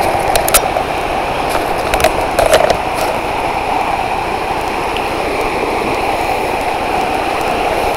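Steady rush of the Chattahoochee River running over shallow rocky riffles, with a few light clicks and cracks in the first three seconds.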